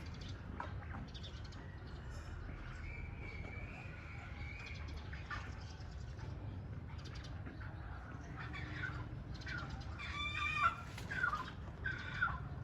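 Chickens at a poultry farm calling. Faint calls come early, and a few louder squawks come near the end.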